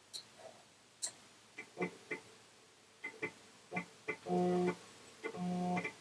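3.5-inch floppy drive reading an 800K system disk during boot: a series of short clicks, then twice a held buzzing tone about half a second long.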